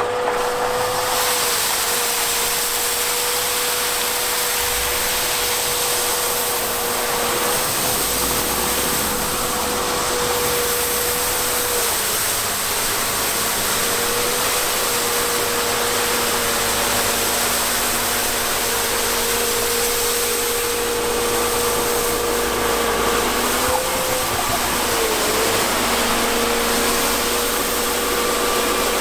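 Volvo EWR150E wheel excavator's diesel engine running while its hydraulically driven rotating snow-sweeper brush spins and sweeps snow. A steady whine goes through it, dropping out and wavering a few times, over a hiss.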